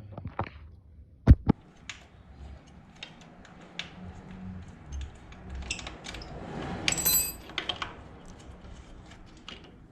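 Metal hand tools clicking and clinking against a motorcycle's gear shift lever fittings as they are worked loose. There is a sharp knock about a second in, scattered light ticks, and a ringing metallic clink near the middle.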